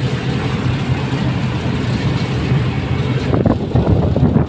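Inside a moving bus: steady low engine drone and road noise, turning choppier with short jolts and rattles near the end.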